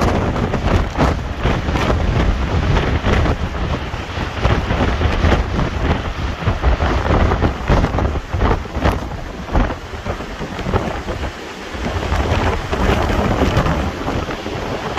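Hurricane wind and rain buffeting the microphone in loud, uneven gusts with a deep rumble, easing briefly about eleven seconds in.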